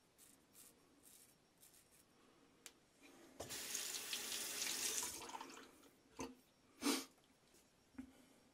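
Faint scrapes of a straight razor on lathered stubble, then a sink tap running for about two and a half seconds as the razor is rinsed. A few short sharp clacks follow, the loudest about a second after the water stops.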